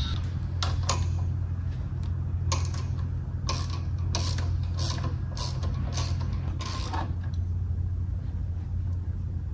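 Socket ratchet clicking in short runs as it turns a bolt on the alternator mount of a Lycoming aircraft engine, with most of the clicks between about two and a half and seven seconds in. A steady low hum runs underneath.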